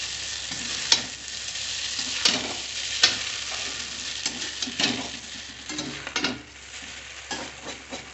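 Maggi noodles sizzling as they fry in oil in a metal kadhai while a metal spatula stirs and tosses them, with several sharp knocks and scrapes of the spatula on the pan in the first five seconds. The sizzle eases a little near the end.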